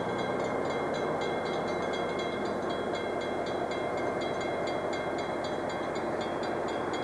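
Diesel locomotive rumbling slowly through a grade crossing, with the crossing signal's bell ringing steadily at a few strokes a second.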